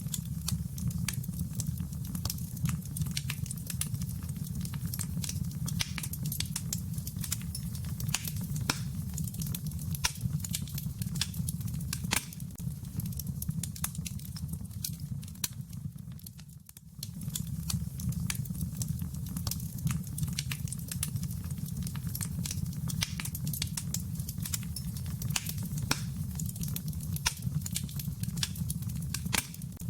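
Fire in a fireplace crackling, with irregular sharp pops over a steady low rumble of the flames. The sound briefly fades out and back in a little past halfway.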